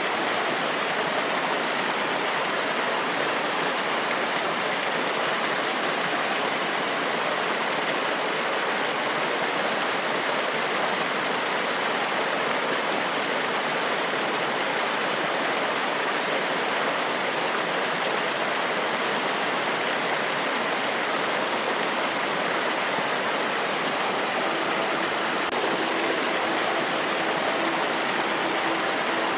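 Forest waterfall: water pouring and splashing over rocks in a steady, even rush. A faint steady hum joins it near the end.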